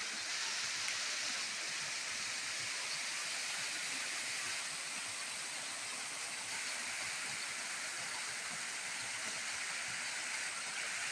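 Small waterfall pouring into a rocky stream pool: a steady rush of water.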